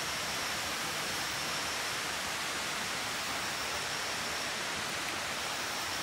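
Steady, even background hiss of the forest, with a faint thin high tone held steady through it.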